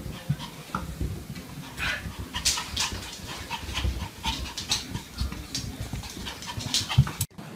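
Puppy panting in quick, uneven breaths as it makes its way down carpeted stairs, with soft bumps from its steps. The sound cuts off suddenly near the end.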